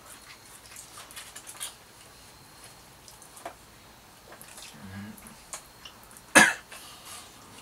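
Small clicks and smacks of people chewing burgers and fries, with a brief low hum about five seconds in. Near the end comes a single sudden, loud cough.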